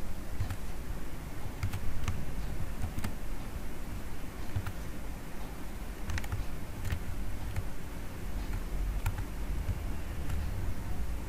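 Scattered, irregular clicks of a computer keyboard and mouse, over a low background hum.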